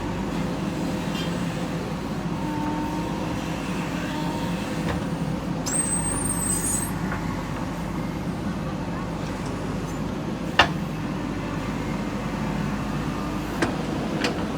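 JCB backhoe loader's diesel engine running steadily while it loads soil, with a brief high squeal about six seconds in and a few sharp knocks in the second half.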